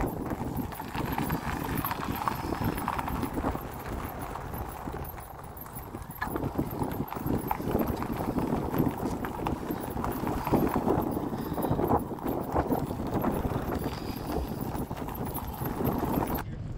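Rumble and rattle of a bicycle being ridden over a rough, gravelly road surface, with many small knocks, mixed with wind buffeting the microphone.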